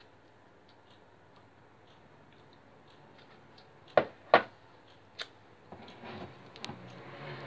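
Metal serving spoon set down in a ceramic baking dish: two sharp clinks about four seconds in, then rustling near the end.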